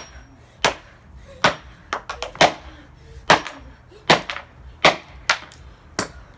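A hammer striking the plastic remains of a clock radio's speaker, about a dozen hard, sharp blows at a steady pace of roughly one every half second to a second.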